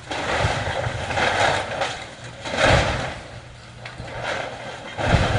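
Excavator demolishing a house: crashing and crunching debris in several waves, with heavy low thuds near the middle and again near the end, over the steady hum of the excavator's diesel engine.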